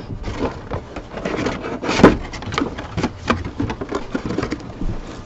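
A cardboard card box being handled and its plastic wrap crinkling: a run of irregular rustles and small knocks, with one sharp click about two seconds in.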